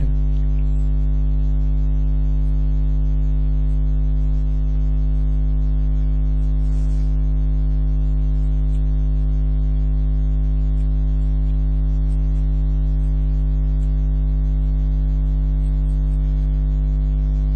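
Steady electrical hum: a strong low buzz with a ladder of overtones above it, unchanging throughout, of the kind left by mains hum picked up in the recording.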